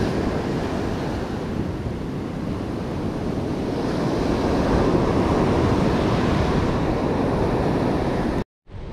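Ocean surf breaking and washing up a sandy beach, a steady swelling rush with wind buffeting the microphone. It cuts off suddenly near the end.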